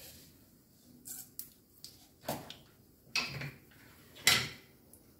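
Mustard seeds popping in hot oil in a nonstick pan: a handful of scattered sharp pops, the loudest about four seconds in. The popping shows the oil is hot enough for the tempering.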